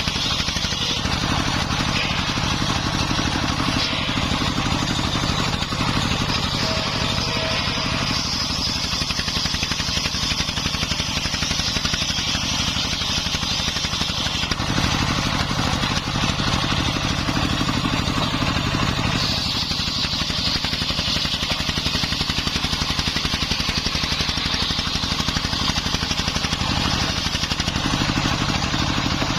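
Single-cylinder Dongfeng 24 hp diesel engine running steadily under load, driving a homemade circular saw. A high hiss from the blade ripping jowar wood swells twice, over two long stretches.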